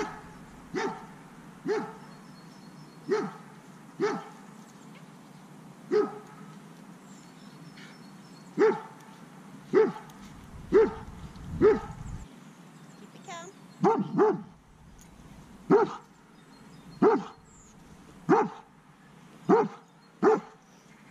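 A dog barking over and over, single barks about a second apart, with a short pause about midway.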